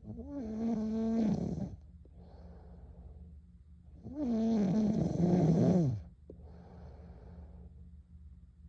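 A girl snoring in her sleep: two loud snores with a buzzing, rattling tone that drops in pitch at the end of each, about four seconds apart, with softer breaths between them.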